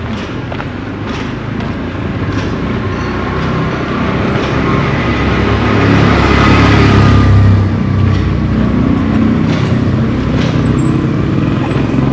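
A motor vehicle's engine passes close by: steady engine and road noise grows louder to a peak about seven seconds in, then eases off.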